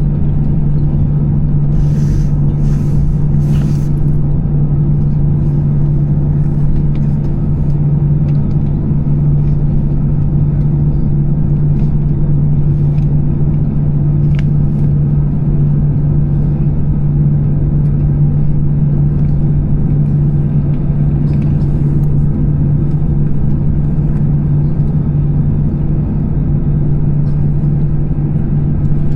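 Steady, loud cabin drone of an Airbus A320-214 on the ground, its CFM56 engines turning at idle with a strong low hum. A brief hiss sounds about two seconds in.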